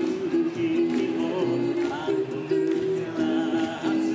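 A six-voice mixed a cappella group singing through microphones, several parts holding sustained chords. Vocal percussion ticks out a steady beat underneath.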